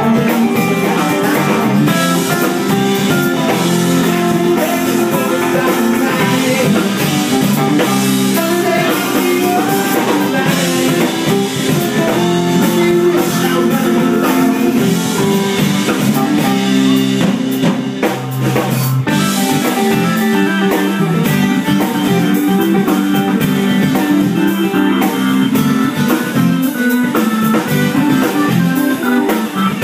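Dance music with guitar and drums, playing loudly and steadily.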